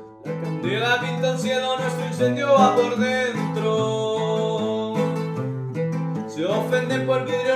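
Man singing to his own strummed and plucked Colombian bandola, with a walking bass line on the low strings. The voice comes in about half a second in, breaks off briefly around six seconds, and comes back.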